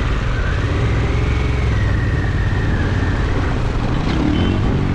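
Adventure motorcycle running steadily along a dirt trail, heard from an onboard camera as a heavy, even low rumble with a faint wavering whine above it.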